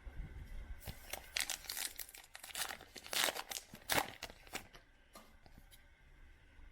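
Baseball cards and their packaging being handled: a run of crinkling and rustling from about a second in to past four seconds, loudest near the end of the run.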